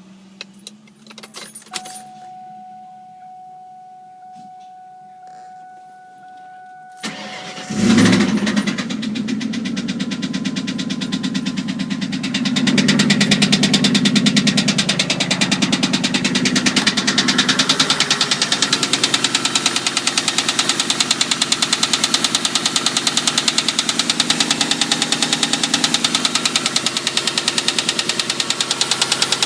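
2001 Ford Mustang GT's V8 engine being started about seven seconds in, after a few quiet seconds with clicks and a faint steady tone, then idling with a fast, even knock running through it, which the owner says a shop failed to fix. The engine runs louder for a few seconds around the middle before settling back.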